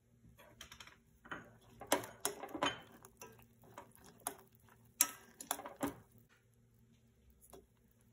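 A silicone spatula stirring whole mushrooms in broth in a stainless-steel saucepan, with a run of sharp clicks, knocks and scrapes against the pot. The loudest knocks come about two seconds and five seconds in, and the stirring stops about a second after that.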